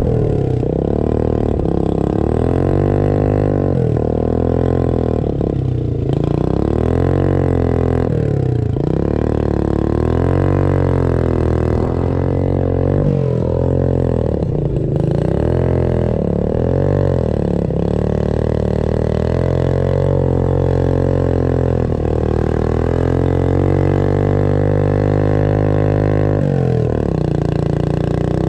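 Motorcycle engine running at low speed while towing a sled over snow, its pitch rising and falling every few seconds as the throttle opens and closes.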